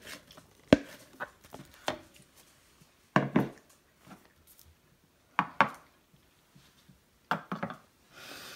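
A wooden spoon knocking and scraping against the dishes while scooping soft cornbread dressing: a few sharp knocks in the first two seconds, then three short clatters about two seconds apart.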